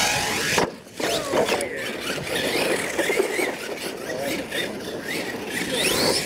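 Electric motor of a radio-controlled monster truck whining, its pitch rising and falling repeatedly as the throttle is worked.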